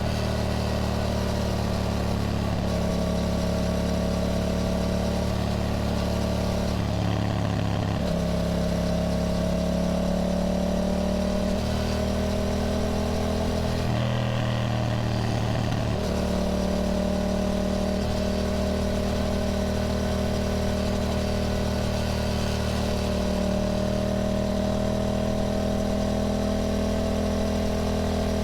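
Yamaha motorcycle engine running steadily at road speed, its pitch slowly rising and falling, with two brief shifts in pitch, about seven seconds and about fifteen seconds in.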